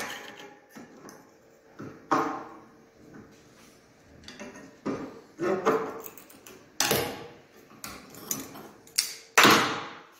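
Irregular sharp metal knocks, each with a short ring, about eight in all, as a small steel exhaust patch piece clamped in locking pliers is worked with a screwdriver against a metal-topped bench. The loudest knocks come near the end.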